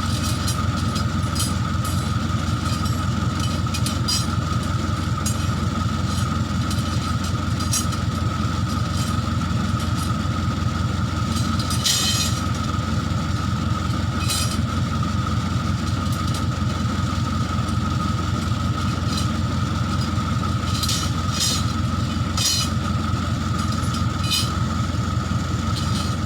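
Case 580K backhoe's diesel engine running steadily with a fast low throb and a steady whine over it, broken by occasional short, sharp clinks.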